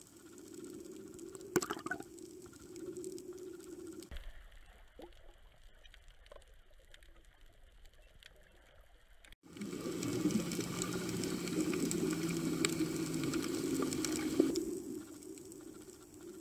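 Muffled underwater water noise just below the surface, with water sloshing and swirling around the camera and a few sharp clicks. It goes much quieter for about five seconds, then comes back louder as rushing water with a steady low hum for several seconds.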